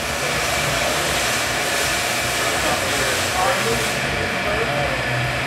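Steady whirring hiss of a servo-hydraulic loading system, its hydraulic pump and actuator running through a fatigue test on a concrete girder.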